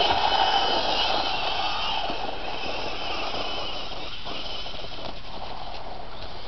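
Traxxas 1/16 E-Revo VXL RC truck's brushless motor and drivetrain whining with tyre noise on dirt, fading over the first two seconds or so into a steadier, quieter hiss.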